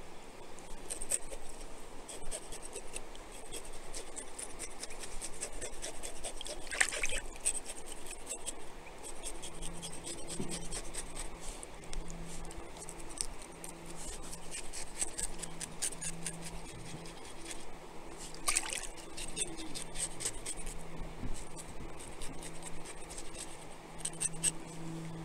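Shallow creek water trickling over rocks, with small wet splashes and handling noises as a trout is cleaned and rinsed in the stream. A couple of louder splashes stand out, one about seven seconds in and one about eighteen seconds in.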